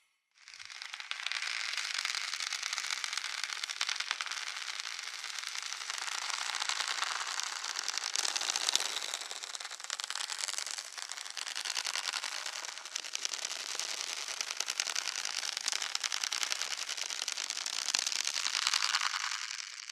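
A dense, continuous crackling made of many tiny rapid clicks, fading in at the start and out near the end.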